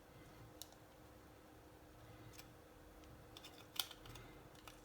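Near silence with a few faint clicks and taps of small kit parts being handled and fitted together, the loudest a little under four seconds in, over a faint steady hum.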